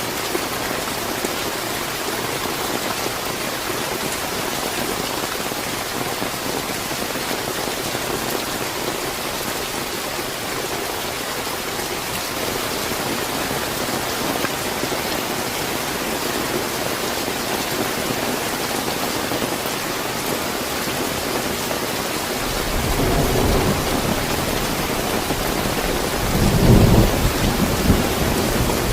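Steady heavy rain hissing, with a low rumble of thunder building near the end and swelling to its loudest roll a few seconds later.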